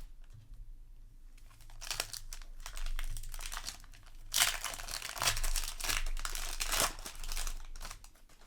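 Foil wrapper of a Magic: The Gathering play booster pack crinkling and tearing as the pack is opened, loudest in a dense stretch of crackling about halfway through.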